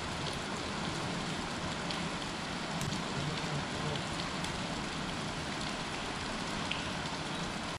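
Steady, even hiss of water, with a few faint ticks scattered through it.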